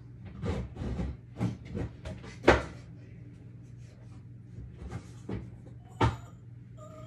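A series of irregular knocks and clatters, like cupboard doors or kitchenware being handled, the loudest about two and a half seconds in, over a steady low hum.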